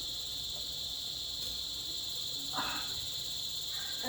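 Steady, high-pitched chirring of crickets running without a break, with one short soft rustle about two and a half seconds in.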